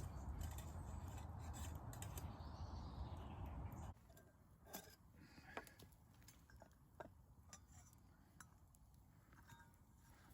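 A steady rushing noise that cuts off suddenly about four seconds in, then scattered light clicks and scrapes of a metal spoon against a pot and bowl as campfire stew is served.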